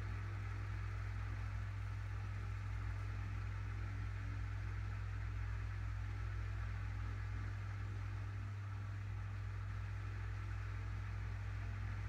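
Steady low hum with an even hiss: background room noise with no clear events.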